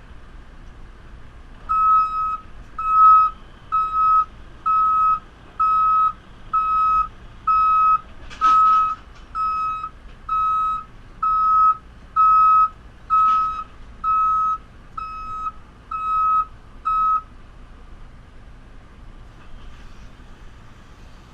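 Reversing alarm of a JCB 3CX backhoe loader beeping steadily, a single high tone repeated a little faster than once a second while the machine backs up, stopping about 17 seconds in. Two short knocks sound partway through.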